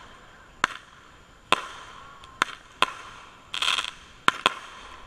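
Fireworks going off: a string of sharp bangs, about six in five seconds, with two short bursts of hiss between them.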